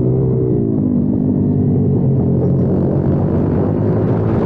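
Kayo TT 140 pit bike's single-cylinder four-stroke engine heard from on board, its revs dropping over the first second as it slows into a corner. It then runs rough and noisy for a few seconds before settling into a steady note near the end.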